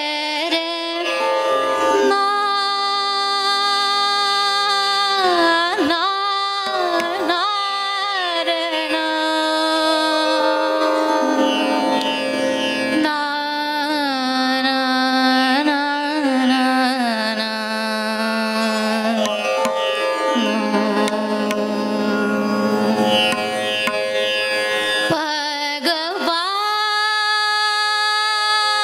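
A woman singing a slow Hindustani classical alap: long-held notes with slow gliding ornaments, phrase after phrase, over a steady drone, with no tabla playing.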